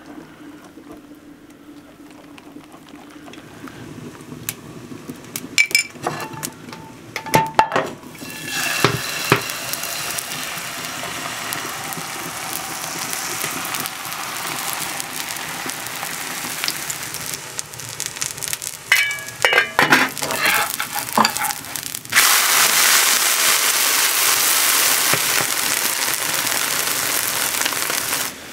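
A whisk clinks a few times against an enamel bowl of liver batter, then the batter is poured into a hot oiled cast-iron pan and sizzles steadily as a thin liver pancake fries. A few knocks come in the middle, and the sizzle gets louder near the end.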